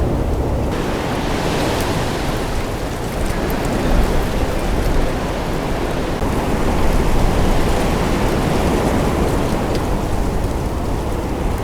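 Strong wind buffeting the microphone in a steady low rumble, with a broader rushing hiss that comes in about a second in and swells a little in gusts.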